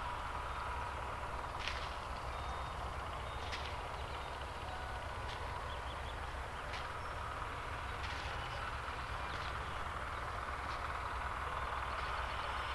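Open-air field ambience: a steady low rumble with a faint hiss, and light short ticks or scrapes about every second and a half.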